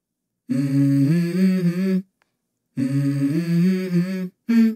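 Background music: a wordless hummed vocal melody of held, stepping notes in two short phrases, each cut off abruptly by silence, with a brief note near the end.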